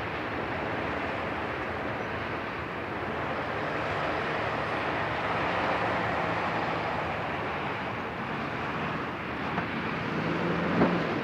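Steady rumble and wind noise as a freight train moves off into the distance. Near the end a delivery box truck drives over the grade crossing: its engine hum comes up, with a sharp knock about half a second before the end.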